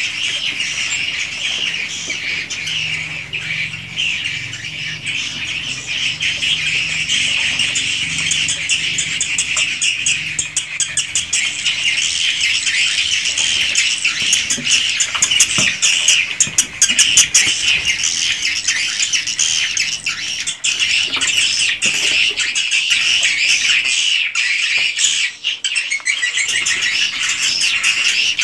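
A large flock of edible-nest swiftlets twittering without pause in a dense, high-pitched chatter, with runs of rapid clicks in the middle.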